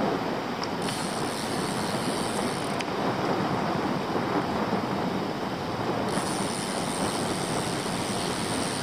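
Steady rushing of wind on the microphone, mixed with the rumble of e-bike tyres rolling along a tarmac lane.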